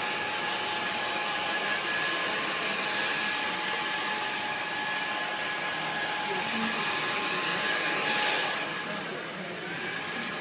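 Handheld hair dryer blowing: a steady rush of air with a thin whine, dropping a little in level about eight seconds in.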